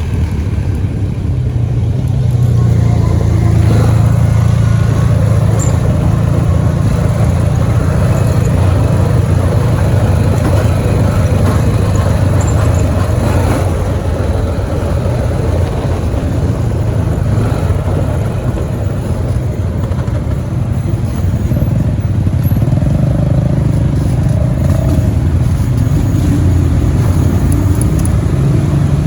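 4x4 ATV engine running loudly and steadily.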